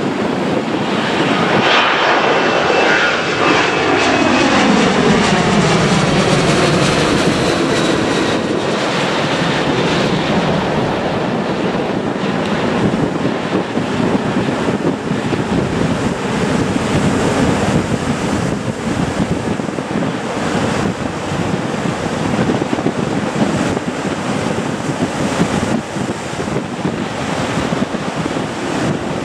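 Boeing 737-800 jet climbing out after takeoff on its two CFM56-7B turbofan engines, passing overhead. A loud jet roar whose engine tones glide downward in pitch from about two to seven seconds in, then settles into a steady rumble as the jet climbs away.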